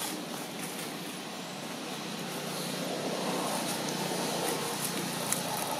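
Steady hum of a motor vehicle's engine, which grows a little louder about halfway through as the vehicle nears.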